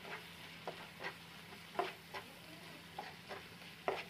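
Plastic slotted spatula stirring and scraping fried onion masala around a nonstick frying pan, in about eight short, irregular strokes over a faint sizzle of frying.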